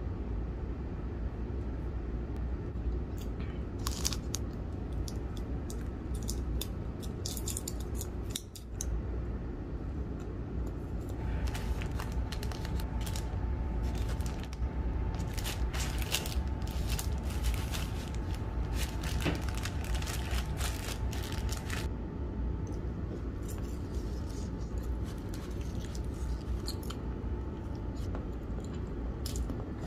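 Aluminium foil wrapper crinkling and tearing as it is peeled off a block of processed cheese, in clusters of sharp crackles, with plastic sheet rustling. A steady low hum runs underneath, and a faint steady tone enters partway through.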